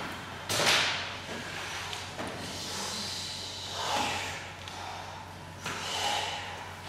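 A group breathing out in loud, hissing breaths and sighs every second or two while swinging and flapping cloths. A sharp swish or snap about half a second in is the loudest sound.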